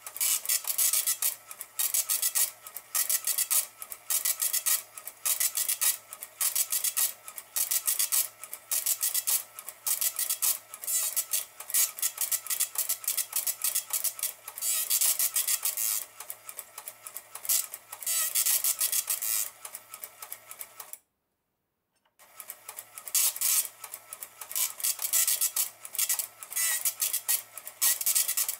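Built-in dot matrix printer of an Elka 803-02 cash register printing a report, line after line, in short rasping bursts about two a second. The sound cuts out completely for about a second roughly three quarters of the way through, then the printing resumes.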